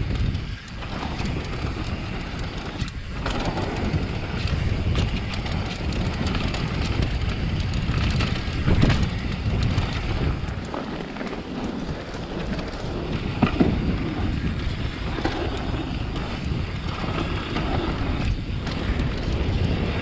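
Wind buffeting an action camera's microphone over the rumble and rattle of a mountain bike rolling fast down a dirt trail, with sharper knocks about nine and thirteen and a half seconds in.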